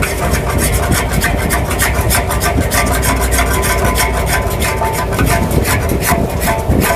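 Long-handled metal wok spatula scraping and stirring sliced pork in a large steel wok, with rapid, repeated scrapes of metal on metal over the bubbling pan. Underneath runs the steady low rumble of the gas wok burner.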